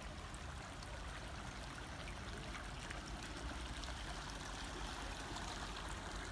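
Shallow garden stream trickling and babbling steadily around stepping stones, with many small splashes and drips.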